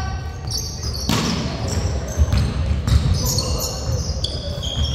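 Basketball game on a hardwood gym floor: the ball bouncing in repeated thumps, with a few sharp impacts and short high-pitched sneaker squeaks.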